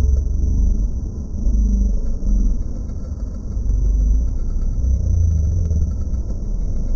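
Low, steady rumble of wind buffeting the microphone mixed with surf breaking on the shore, the level swelling and easing every second or two.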